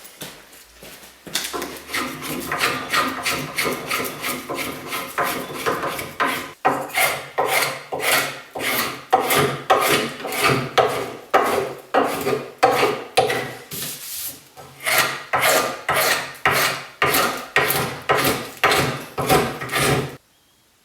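Spokeshave shaving green ash, repeated scraping strokes about two a second with a short pause midway, stopping abruptly near the end.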